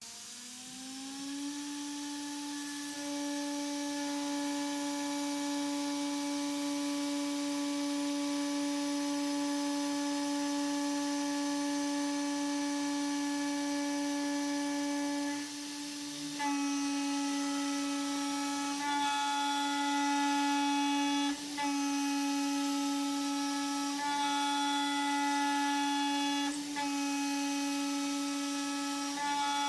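CNCDepot S30C spindle on an Avid CNC Benchtop Pro router spinning up, then running with a steady high whine while milling aluminum. About halfway through the sound changes and fills out with more tones, and it dips briefly a few times after that.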